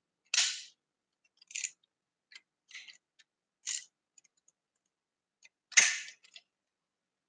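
Small fishing tackle being handled up close: about six short clicking, scraping rustles at uneven intervals, the loudest about six seconds in.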